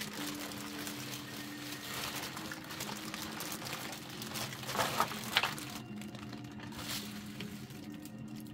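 Clear plastic packaging bags crinkling and rustling as they are handled and lifted out of a cardboard box, with louder crackles about five seconds in and again near seven seconds.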